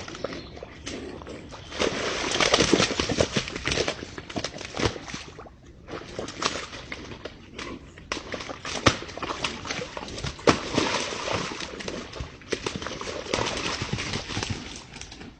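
Deer moving about, their hooves making irregular knocks and scuffles, loudest in stretches about two seconds in and again around nine to eleven seconds.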